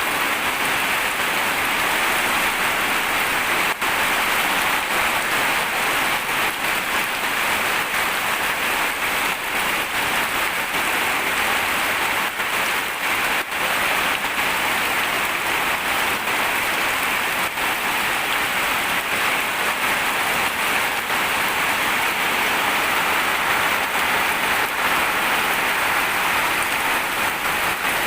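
Rain falling steadily, a dense patter of individual drops over a continuous hiss.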